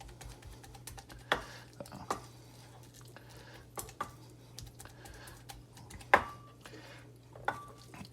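A utensil knocking and scraping against a bowl while braised duck liver is being mashed: a few sharp, irregular clicks spread over several seconds, the loudest about six seconds in, over a steady low hum.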